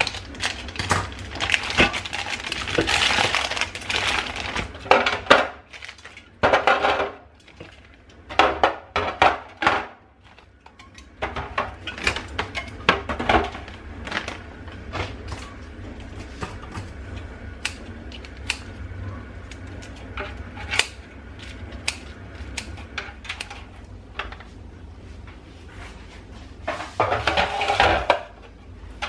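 Dishes and kitchen items being handled and set down: a run of clinks and knocks, with busier handling stretches near the start and near the end.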